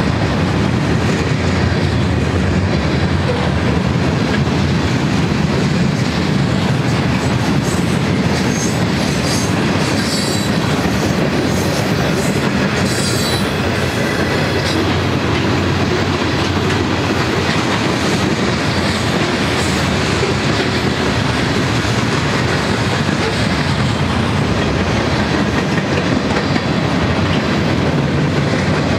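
Cars of a manifest freight train rolling steadily past close by: steel wheels clattering over the rail, with some high squeaks from the wheels a third of the way in.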